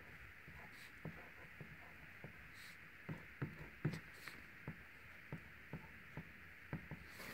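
Faint, scattered small ticks and scratches of a Micron fine-tip pen drawing on a tile, over a steady faint hiss.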